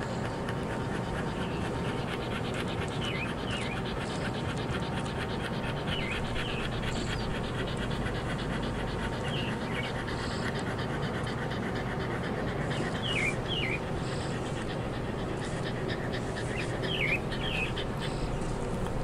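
A dog panting in a quick, steady rhythm, with short bird chirps coming in now and then over it.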